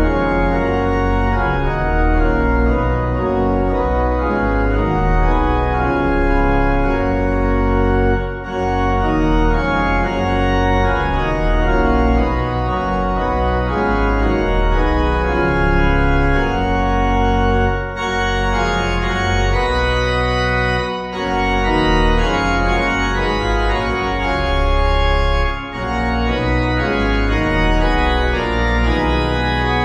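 Organ playing a slow piece in sustained chords, with short breaks between phrases about eight, twenty-one and twenty-six seconds in.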